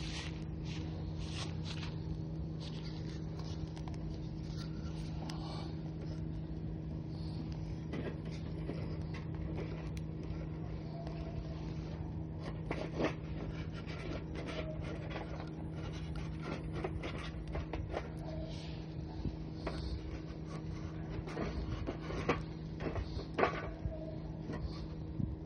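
Wood fire in a fire pit crackling, with scrapes and a few sharper knocks, the loudest about 13 s and 22 to 23 s in. A steady low hum runs underneath.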